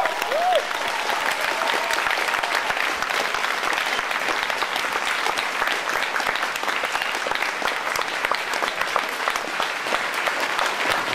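Audience applauding steadily, a dense even clatter of many hands clapping, with a brief pitched cry from the crowd in the first half-second.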